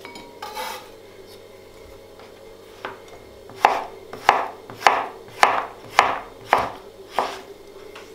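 Chef's knife slicing courgette into julienne strips on a plastic cutting board. A few seconds in, a steady run of about seven cuts begins, a bit under two a second, each stroke ending in a sharp knock of the blade on the board.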